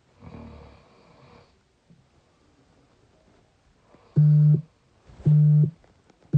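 One snoring breath near the start, then three loud, identical low steady beeps about a second apart, the last one beginning right at the end.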